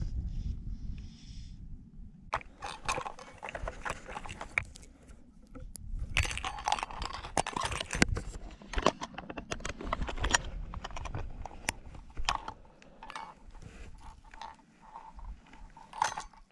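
Clear plastic fly box being opened and handled close to the microphone: a run of small clicks, rattles and rustles, thickest in the middle, after a low rumble in the first couple of seconds.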